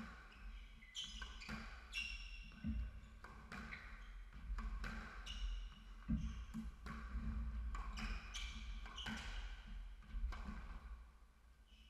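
Squash rally: the ball struck by rackets and smacking off the walls in sharp hits about once a second, with short high squeaks of shoes on the wooden floor between them. The rally stops near the end.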